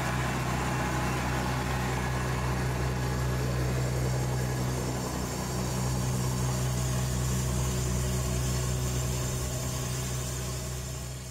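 Engine of a Romney, Hythe & Dymchurch Railway miniature diesel locomotive, No. 12, running steadily at idle as a low, even hum. It fades out near the end.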